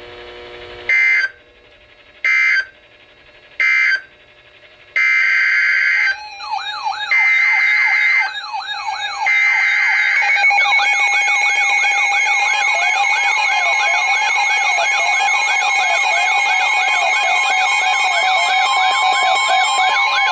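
Emergency Alert System data tones from a weather radio: three short screeching data bursts, then three longer ones. From about 10 seconds in, a long steady alert tone sounds. From about 6 seconds in, a siren-like tone sweeps up and down several times a second over it.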